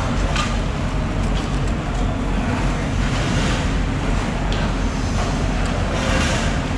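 Steady, loud rushing background noise with a deep low rumble, broken by a few faint knocks.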